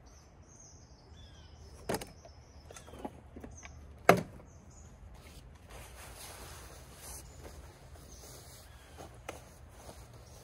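Camping gear being packed on a wooden picnic table: two sharp knocks about two and four seconds in as things are set down, then a steady rustle of a jacket and clothes being stuffed into a backpack. Birds chirp faintly in the background.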